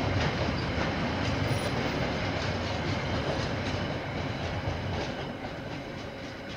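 KiwiRail freight train's container wagons rolling past, a steady rumble with the wheels clicking over the rails, growing gradually quieter in the second half.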